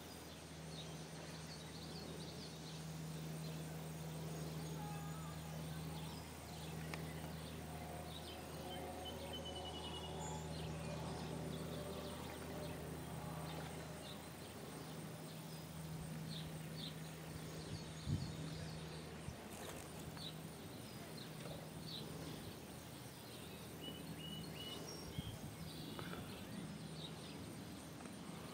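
Outdoor summer ambience: a steady low hum under scattered short, high bird or insect chirps, with one sharp click about two-thirds of the way through.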